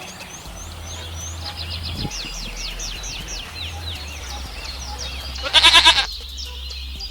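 Small birds chirping in quick falling notes, then a single loud, wavering goat bleat lasting about half a second, about five and a half seconds in.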